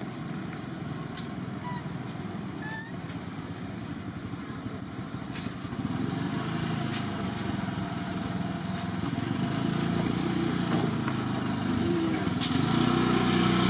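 A motor engine running, getting louder about six seconds in and louder again near the end.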